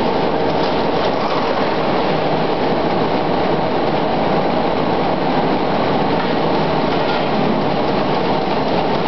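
Briquetting presses of a production line running: a steady, dense mechanical clatter with a faint, constant hum underneath.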